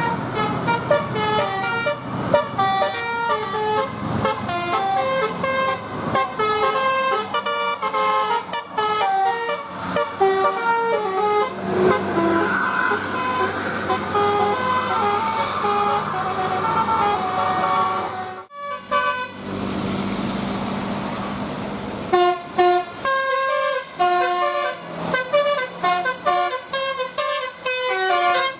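Basuri telolet bus horns, multi-tone air horns playing quick melodic runs of short stepped notes, one after another, with a short break about two-thirds of the way through.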